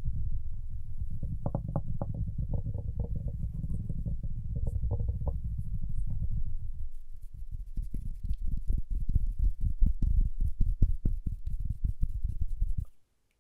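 Close-miked fingers tapping and rubbing, for the first half as a dense run of soft low taps with a rumbling texture. Then come quick separate taps, several a second, which stop shortly before the end.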